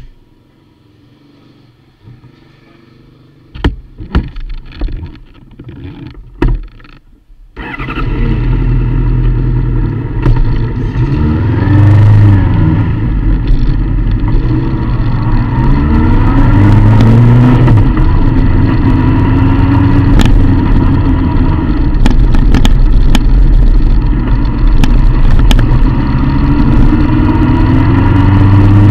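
A few knocks and clicks close by, then about seven seconds in a sport motorcycle engine starts abruptly and runs loud. It revs with repeated rising pitch as the bike pulls away and accelerates through the gears.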